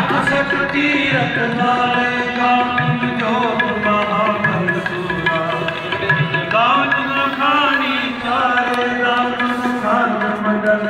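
Sikh kirtan: tabla and harmonium accompanying a sung Gurbani hymn, with long, bending melodic phrases.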